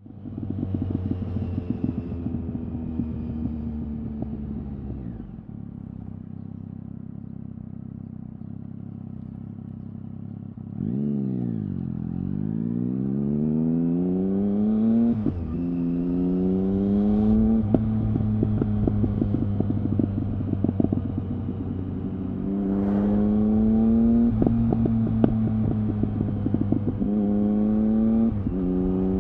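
Triumph Speed Triple R's three-cylinder engine through an Arrow exhaust with the dB-killer baffle removed, heard from the saddle while riding. The revs fall away over the first few seconds and the engine runs low and steady. About eleven seconds in it pulls away, the pitch climbing in steps with a quick drop at each upshift, and it alternates steady cruising with fresh pulls.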